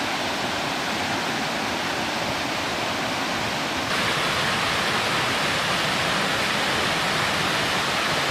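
Small mountain-creek waterfall cascading into a pool: a steady rush of falling water, a little louder from about four seconds in.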